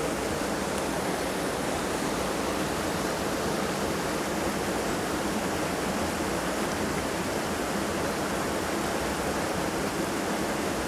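Mountain headwater stream rushing over rocks: a steady, even rush of water.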